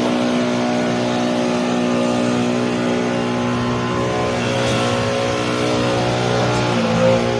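Grass cutter's small engine running steadily at an even speed, with a brief dip and change in pitch near the end.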